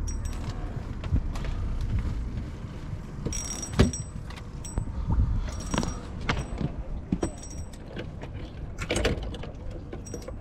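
Knocks and clatter of fishing gear being handled on a boat's deck (landing net, bucket, rods), the sharpest knock about four seconds in, over a steady low rumble.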